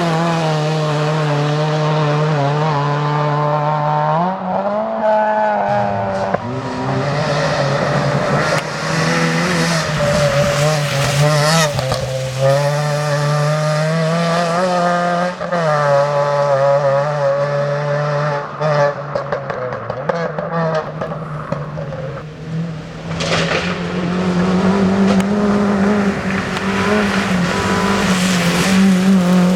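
Rally car engine running hard on a stage, its pitch climbing and dropping repeatedly with throttle and gear changes.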